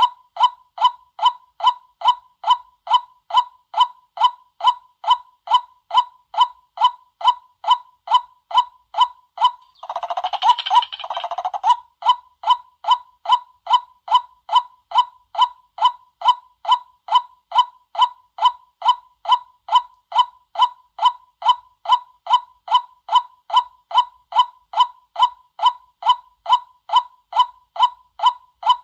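White-breasted waterhen calls played as a lure: a short hooked 'kwak' note repeated very regularly about twice a second. A harsher, denser run of calls comes about ten seconds in.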